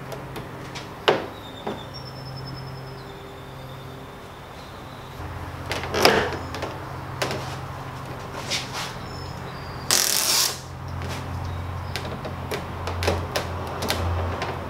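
Handling noises as a carbon-fibre Gurney flap is fitted and pressed onto a car's rear wing: scattered knocks and taps, with a brief rustling burst about ten seconds in, over a steady low hum.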